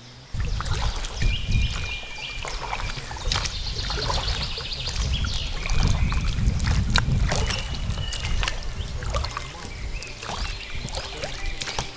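A small fishing boat out on the water, with steady low rumbling and repeated knocks and splashy noises of the boat and gear on the water.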